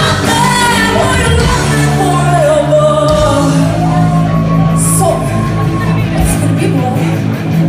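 Live rock music with singing: a voice holds long, wavering notes over the band's sustained low notes.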